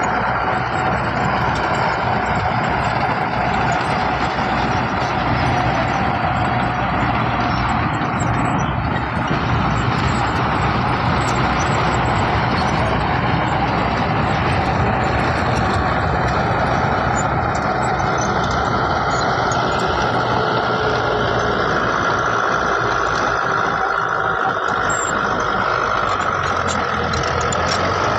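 Heavy diesel earthmoving machinery running steadily under work, engines loud and continuous, with a faint higher whine holding through the second half.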